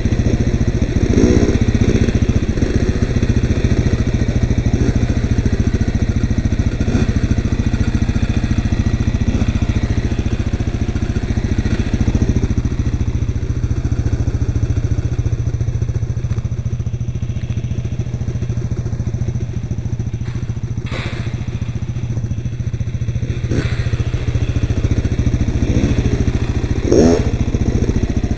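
Suzuki LTZ 400 QuadSport's single-cylinder four-stroke engine running while the quad is ridden along a dirt trail, revving up briefly about a second in and again near the end, quieter through the middle. A couple of sharp knocks come about two-thirds of the way through.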